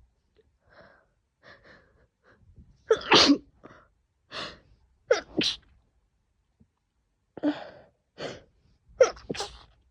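A woman's fit of morning sneezes, some stifled and some let out, with short catching breaths before them. The loudest sneeze comes about three seconds in, followed by several more, some in quick pairs.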